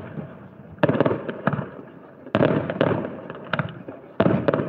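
Aerial firework shells bursting: three loud booms about a second and a half apart, each dying away over about a second, with sharp cracks and crackles between them.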